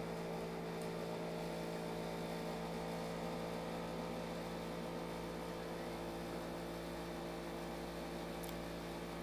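Steady low electrical hum with a few fixed tones, the background hum of a home recording setup, with a couple of faint clicks about a second in and near the end.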